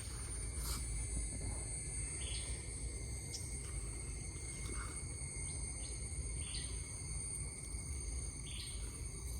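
Steady insect chorus: several high, unbroken trilling tones, with short chirps every second or two, over a low rumbling background noise.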